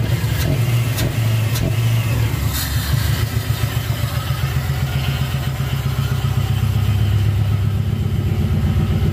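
Subaru EJ20 turbocharged flat-four engine idling steadily with its intake and intercooler piping off, the turbos drawing open air, shaking only a little. A few light clicks sound in the first few seconds.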